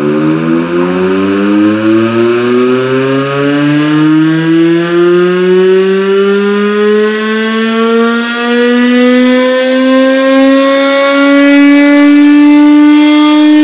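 Motor-driven fire siren winding up: one long, loud tone that rises slowly in pitch and levels off near the end.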